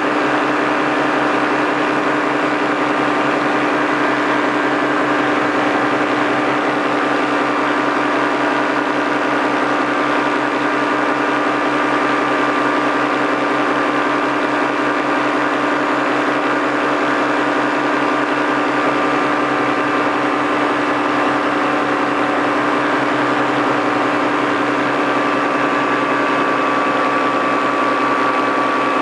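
Paramotor's two-stroke engine and propeller running steadily at constant throttle, a continuous buzzing drone with a steady pitch.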